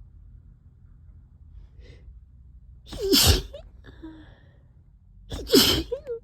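Allergy sneezing: two loud, sudden sneezes about two and a half seconds apart, one about 3 seconds in and one about 5.5 seconds in.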